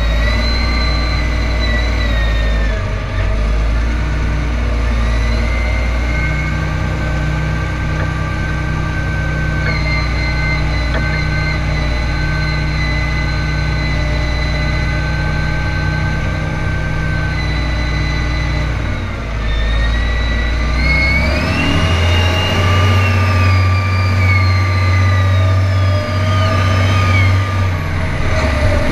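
John Deere tractor's diesel engine running steadily under way, with a high whine over it; about two-thirds of the way through it revs up, holds, and drops back near the end.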